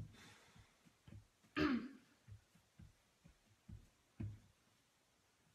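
Soft, dull thumps, about two a second, as a metal cookie cutter is pressed through dough on a silicone baking mat. About a second and a half in comes a short vocal sound that falls in pitch.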